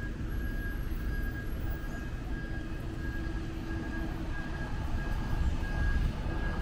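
City street traffic rumbling steadily, with a high electronic beep repeating evenly about twice a second.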